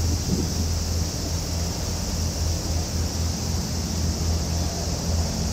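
Steady outdoor background noise: a low, gently pulsing rumble with a constant high-pitched hiss, and no bird calls.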